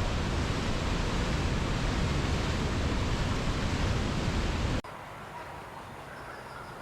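Steady rushing of flowing water. About five seconds in it cuts off abruptly, giving way to a much quieter background with faint repeated chirps.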